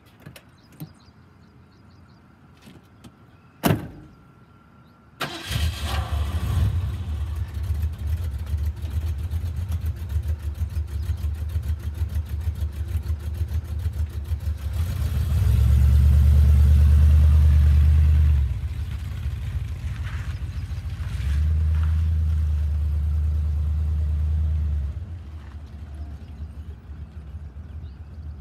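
A car door shuts, and about a second and a half later a Ford Mustang II's modified 5.0-liter V8, with headers, a hotter cam and MSD ignition, starts up and idles. About ten seconds later it pulls away, loud through two stretches of acceleration, then drops lower as the car drives off.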